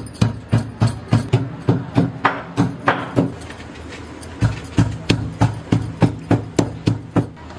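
Garlic, ginger and green chillies being pounded coarsely with a mortar and pestle: steady knocks at about four a second, with a pause of about a second midway.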